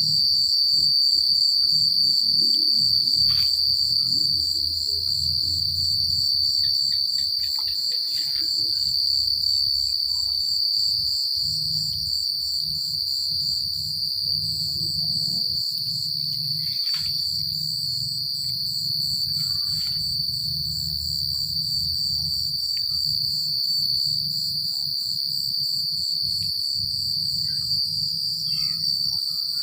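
Crickets chirping in a dense night chorus: one continuous high trill, with a faster, evenly pulsing trill above it. A low rumble runs underneath.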